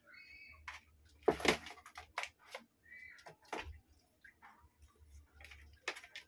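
Kittens scrabbling in and against a cardboard shoebox: irregular light clicks and scratches of claws on cardboard and floor, with a louder rustle of the box about a second and a half in. A couple of short high squeaks come near the start and about halfway through.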